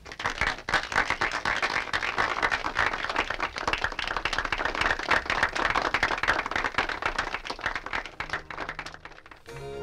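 An audience applauding: many hands clapping densely, thinning out and dying away near the end.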